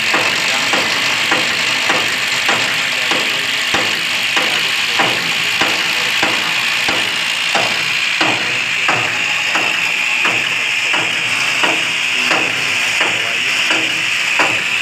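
Electric hammer drill running steadily with a high whine, drilling at the steel canopy frame's wall bracket, with regular knocks a little under twice a second.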